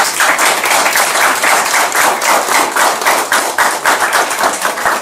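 A roomful of people applauding, with many quick overlapping hand claps, loud throughout.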